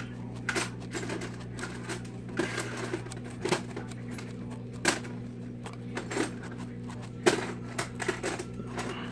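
Hand scrubbing with a Scotch-Brite scouring pad on the aluminium cylinder deck of a GY6 scooter engine, with irregular clicks and light metal knocks as the pad and hand bump the cylinder studs and cam chain tensioner. A steady low hum runs underneath.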